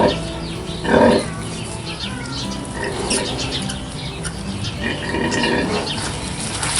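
Pigs grunting and squealing, with loud calls right at the start and about a second in, then more grunts.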